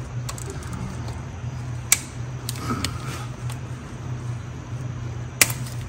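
Two sharp clicks a few seconds apart as the T30 Torx bolts of a 5R55S automatic transmission's solenoid pack are cracked loose with a hand wrench, over a steady low hum.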